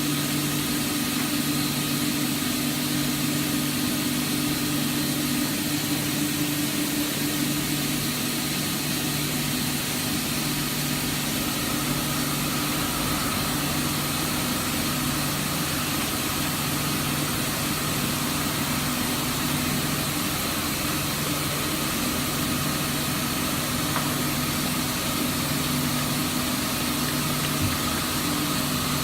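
Mazak Integrex 300-IV ST CNC turning center running under power: a steady machine hum with several held tones, joined by a higher whine about twelve seconds in.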